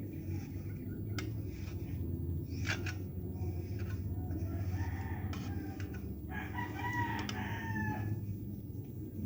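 A rooster crows once, a long call about six seconds in, over a steady low rumble, with a few sharp clicks scattered through.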